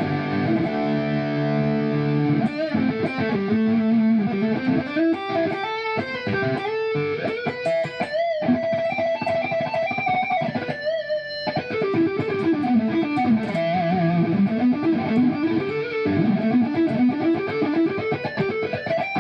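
Electric guitar with Kiesel Polarity pickups in active mode through a high-gain tone. A chord rings for about two seconds, then come fast legato runs up and down the neck, with a few bent notes held with vibrato around the middle.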